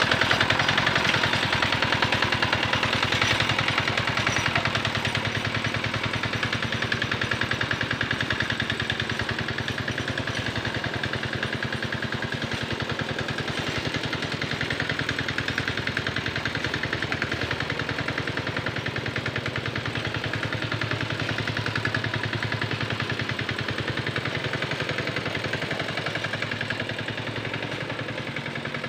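Small single-cylinder diesel engine of a Quick Capung Metal two-wheel hand tractor chugging steadily with rapid, even firing pulses as it pulls a harrow through a wet rice paddy. It grows gradually fainter as the tractor moves away.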